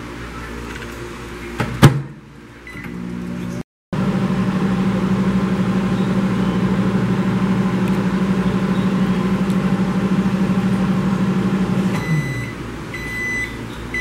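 Consul microwave oven running with a steady hum. About twelve seconds in the hum winds down and stops as the cycle ends, followed by a few short beeps signalling that it has finished.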